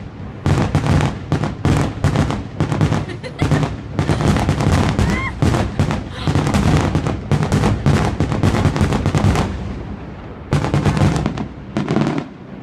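Fireworks show in its finale barrage: a rapid, dense run of bangs and crackling bursts. The bangs ease briefly about ten seconds in, come back in a last flurry, then tail off near the end.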